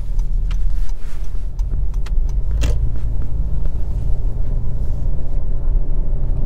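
Low, steady rumble of a 2023 Honda CR-V's 1.5-litre turbocharged four-cylinder and its tyres heard inside the cabin as the car sets off, with a few sharp clicks in the first three seconds, the loudest about two and a half seconds in.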